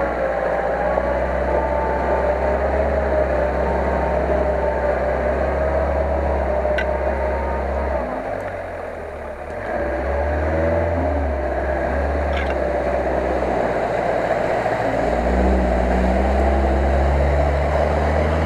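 Asia Rocsta 4x4's engine running under load through deep mud and water, with a steady low rumble. The throttle eases off about eight seconds in, then picks up again and holds strong to the end.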